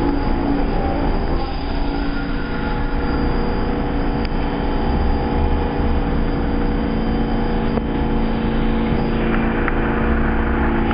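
R46 subway train finishing its stop and standing in the station, its equipment giving a steady hum of several held tones over a low rumble.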